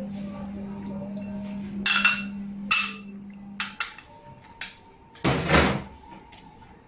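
Kitchen cookware knocking and clinking as seasoned raw fish is handled in a pan: several sharp knocks in the middle, then a short rustling burst about five seconds in, over a steady low hum in the first half.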